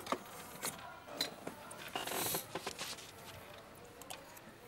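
Quiet eating sounds: a spoon clicking and scraping in a small metal pot, scattered faint clicks with a brief louder scrape about two seconds in.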